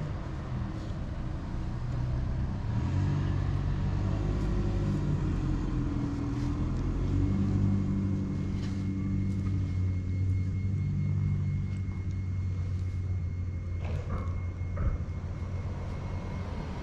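A motor vehicle's engine running nearby as a low, steady rumble that swells about two seconds in and eases near the end, with a few sharp clicks near the end.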